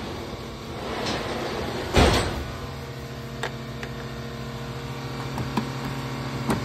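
Hands working around a car's stripped front end: a loud rustle-and-knock about two seconds in, then a few light clicks, over a steady low hum that sets in just after the knock.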